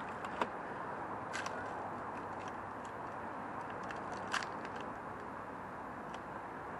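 Steady outdoor background noise with a few short, light clicks and clinks, the sharpest about four seconds in.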